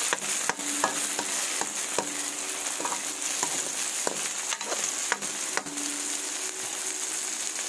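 Chopped onions and tomatoes sizzling in oil in a nonstick wok while a spatula stirs them, with irregular clicks and scrapes of the spatula against the pan.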